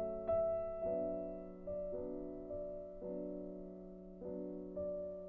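Background music: soft piano chords, a new chord or note struck every second or so and left to fade.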